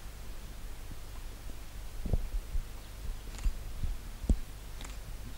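A low steady hum with four dull thumps spaced irregularly through it.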